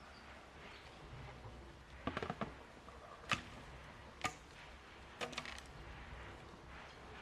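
A few sharp, irregular knocks and clicks: a quick cluster of taps about two seconds in, two single sharper knocks, then another short cluster a little after five seconds.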